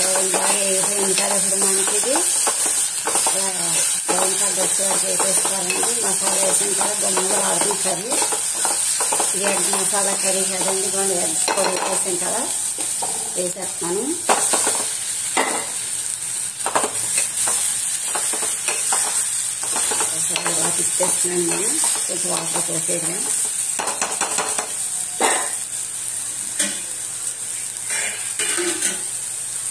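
Onion masala sizzling as it fries in a steel pot, with a steel spoon stirring and scraping against the pot. In the second half the stirring gives way to separate knocks and clinks of metal on metal as boiled eggs are added and turned in. A low humming tone comes and goes through the first two-thirds.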